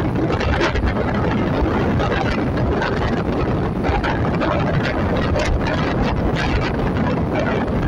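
Wind rushing and buffeting on the microphone of a moving vehicle, with the steady rumble of travel along the road underneath.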